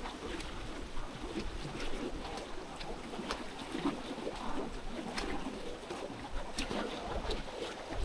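A rain-swollen stream rushing, with irregular sharp taps of raindrops striking an umbrella.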